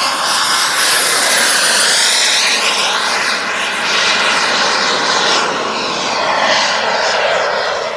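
King Tech gas turbine of a Carf Viper Jet RC model running at high power as the jet flies past: a loud rushing whine that swells and fades with the passes, its tone sweeping as it goes by.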